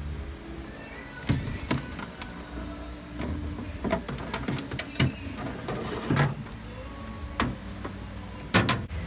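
Kitchen handling noise: about a dozen irregular clicks and knocks, the loudest a double knock near the end, over a low steady hum.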